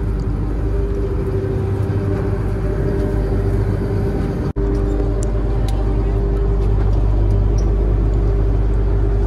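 A tour boat's engine running steadily under way: a low drone with a steady hum over it. It breaks off for an instant about four and a half seconds in and comes back a little louder.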